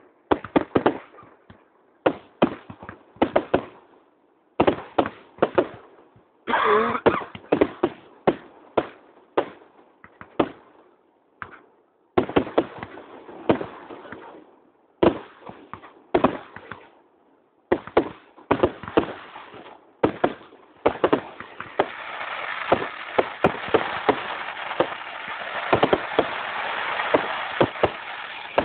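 Firework display: a quick, irregular series of shell bursts and bangs. About twenty seconds in, the bangs thicken into a continuous crackle with bursts on top.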